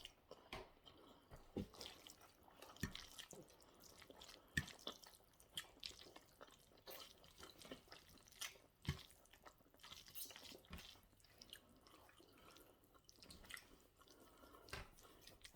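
Faint eating sounds of spaghetti bolognese being chewed: soft wet mouth noises with scattered small clicks, a few a second, the sharpest about 3, 4.5 and 9 seconds in.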